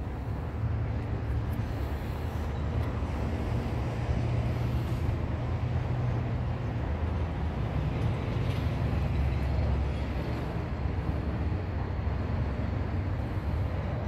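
A steady low rumble with a hiss over it.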